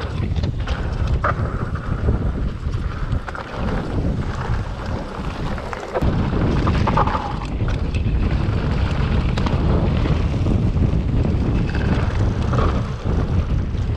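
Wind buffeting an action camera's microphone during a mountain-bike ride, a steady low rumble with a few sharp knocks from the bike over rough ground.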